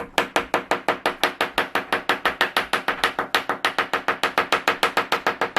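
Small dig-kit hammer tapping rapidly and evenly on a plaster excavation block, about eight loud taps a second, each with a faint ring.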